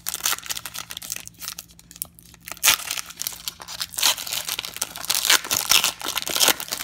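Foil wrapper of a football trading-card pack being torn open and crinkled by hand, in repeated bursts of tearing and crackling, loudest in the second half.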